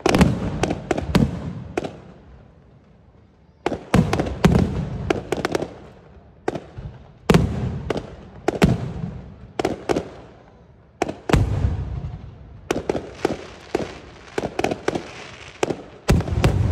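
Aerial fireworks shells bursting in quick clusters of sharp bangs, each cluster trailing off in echo, with short lulls between the volleys.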